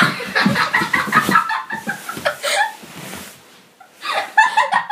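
A girl squeals and shrieks in short, choppy cries as she slides down carpeted stairs in a sleeping bag, with soft bumps as she goes over the steps. The noise dies down about three seconds in, and a few more short cries come near the end.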